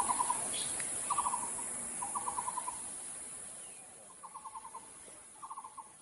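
Nicobar pigeon calling: short bursts of five to seven rapid, low hooting pulses, repeated about once a second, with a pause a little after the middle.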